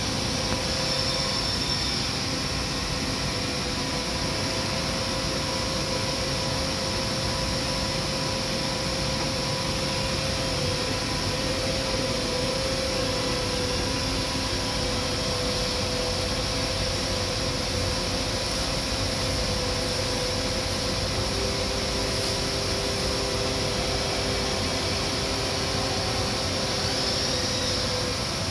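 Steady drone of running machinery and air handling on a factory floor, with a few faint steady hum tones; a lower hum joins about two-thirds of the way through.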